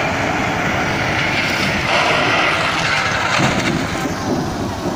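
Steady road and engine noise of a moving vehicle heard from inside its cabin, a continuous rumble with no distinct events.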